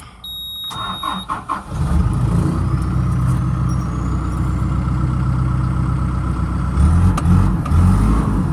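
A short high electronic beep, then the 2008 CAT 450E backhoe loader's diesel engine cranks and catches about a second and a half in and settles into a steady idle. Near the end the engine speed rises and falls a couple of times.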